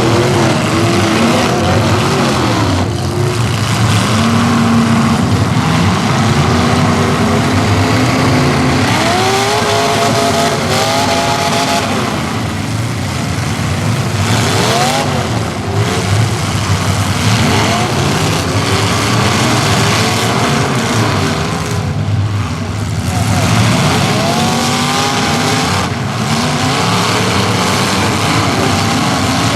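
Several modified demolition derby cars' engines, with loud exhausts, revving hard and running together; the pitch climbs and falls again and again as the drivers rev up, with a few steeper climbs about a third of the way in and again near the end.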